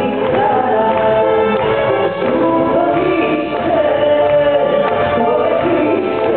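Live folk-pop band with a woman singing lead, accordion and keyboards in the band, heard from the audience in a concert hall.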